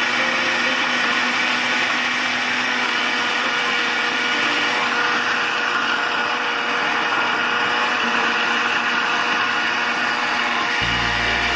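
Electric blender running at a steady speed, blending lemons and oranges into juice.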